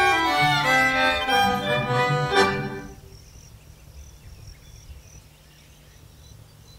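Instrumental soundtrack music that ends on a final note about two and a half seconds in. A quiet stretch follows, with a faint, regular high chirping about twice a second.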